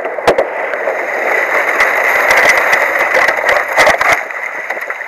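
Boat motor running under load as the boat pushes through and breaks thick lake ice, with many sharp cracks and knocks of ice against the hull, thickest in the middle.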